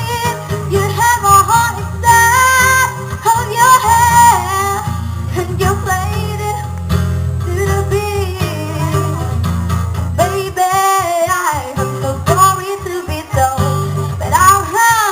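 A recorded song with a singing voice and guitar, played loud through a mobile DJ sound system's speakers during a sound check, with heavy bass.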